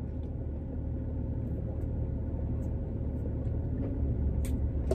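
Steady low rumble and hum of a stationary car's engine and air conditioning, heard inside the cabin. A couple of faint clicks near the end.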